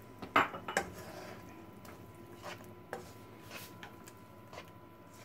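A spatula scraping and tapping against a non-stick wok while prawns in sauce are stirred: a handful of short scrapes and knocks, the loudest in the first second.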